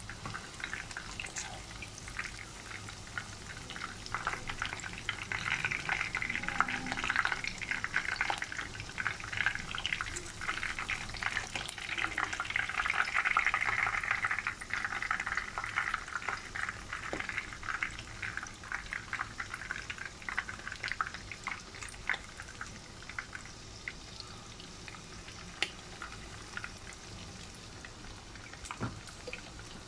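Breaded pork chops sizzling and crackling as they shallow-fry in hot oil, with scattered sharp pops. The sizzle grows louder for several seconds in the middle, then settles back.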